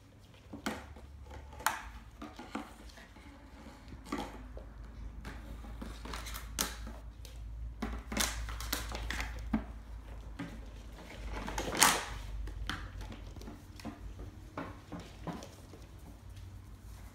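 Puppies' claws clicking and scuffling on a hard floor as they play, with scattered knocks and clatters, the loudest about twelve seconds in.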